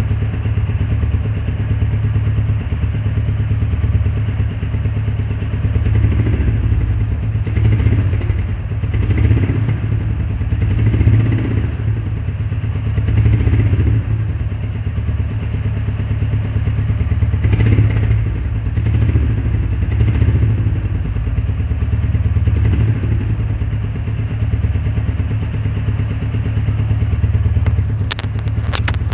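Royal Enfield Meteor 350's single-cylinder engine running through its stock exhaust with a steady low thump at idle. There are several short throttle blips in the middle stretch, and a few sharp clicks near the end.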